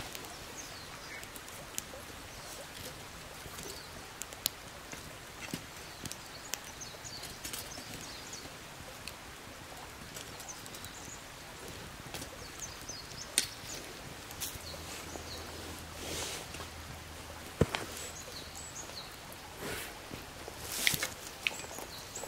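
Wood fire crackling in a small folding steel fire stand, with scattered sharp pops and a few louder snaps in the second half.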